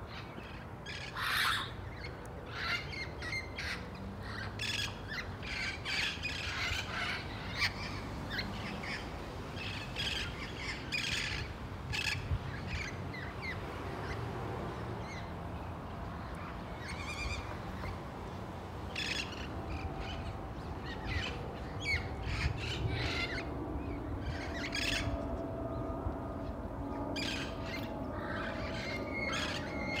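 A flock of wild parrots squawking: harsh, loud calls one after another, some overlapping, all the way through.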